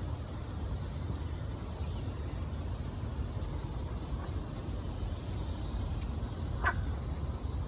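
Steady low background rumble, with a single short frog croak about seven seconds in.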